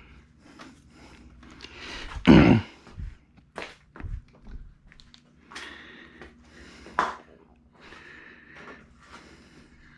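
A string of knocks, clunks and scrapes of hard objects being handled. The loudest is a heavy thunk about two seconds in, and there is a sharp knock about seven seconds in.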